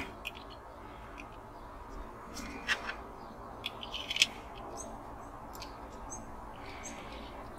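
Faint clicks and taps of small plastic and diecast metal model-car parts being handled and pressed together by hand, with a few sharper clicks between about two and four and a half seconds in.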